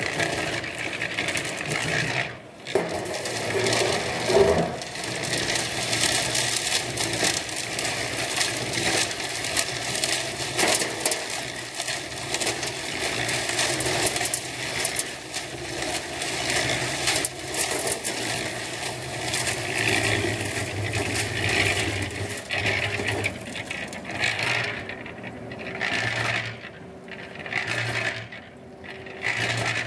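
Small portable cement mixer turning a batch of concrete, with gravel and wet mix churning and rattling against the steel drum in a continuous gritty scrape. Toward the end the sound breaks into separate bursts as the batch is tipped out into a wheelbarrow.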